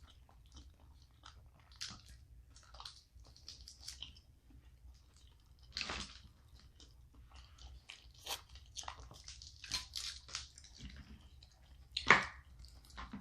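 Close-miked eating of a seafood boil: chewing with irregular crunches and clicks. The loudest crunches come about six seconds in and again near the end.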